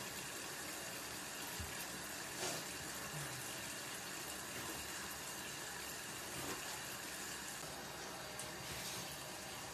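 A few faint taps of a kitchen knife on a wooden cutting board over a steady background hiss.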